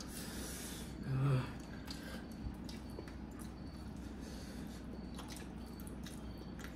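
Faint chewing and wet mouth clicks from someone eating momos, with a brief low hum from the eater about a second in.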